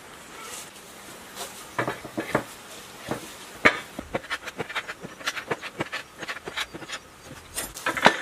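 Metal parts of a mitre saw clicking and knocking as they are fitted and fastened by hand: a few taps, then a quick irregular run of small clicks, with the loudest knocks near the end.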